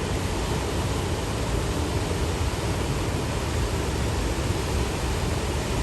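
Steady, even rush of a waterfall, the Fraser River pouring over Overlander Falls.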